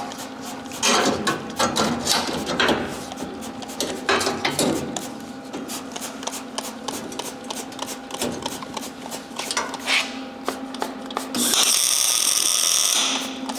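Steel clanking and knocking as metal parts are handled and fitted into the bus floor, over a steady low hum. Near the end comes a loud burst of hissing noise lasting about a second and a half.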